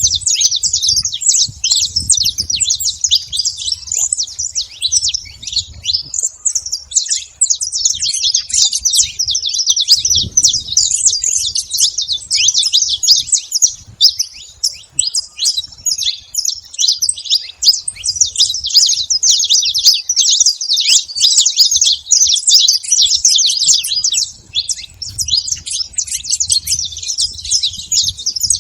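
A flock of saffron finches chirping and calling together at a feeding spot, many short high chirps overlapping into a continuous chatter that thins briefly a few times.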